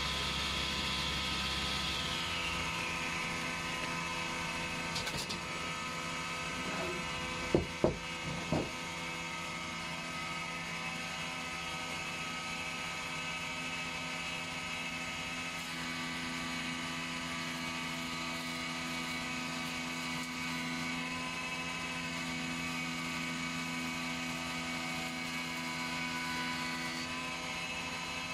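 Woodworking machinery running steadily with a constant motor hum. In the first few seconds a high whine falls away as the table-saw rip ends. Three sharp knocks come about seven to eight seconds in.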